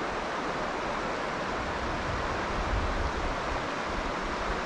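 Steady rushing of flowing creek water over a riffle, with some low rumble underneath.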